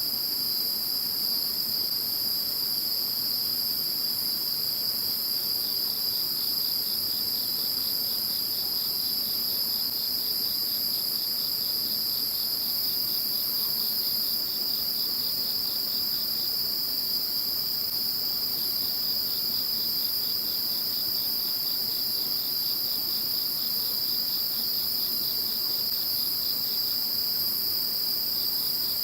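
Insect chorus: several insects trilling steadily at different high pitches at once, with a lower, pulsing trill that starts a few seconds in, drops out briefly around two-thirds of the way through, then resumes.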